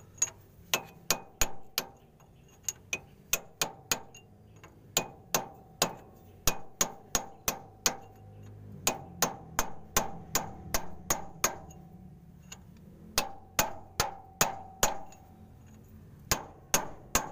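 Hammer striking a steel drift to tap a new oil seal into a Hino truck gearbox around its splined shaft. There are sharp metallic taps at about three a second, in runs of several with short pauses, and each tap rings briefly.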